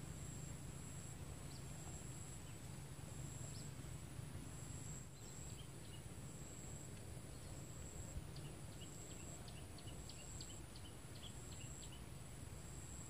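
Faint rural outdoor ambience: insects keep up a steady, very high-pitched drone, with a second high tone that comes and goes, over a low steady rumble. A small bird gives a quick run of short chirps about eight seconds in, lasting some three seconds.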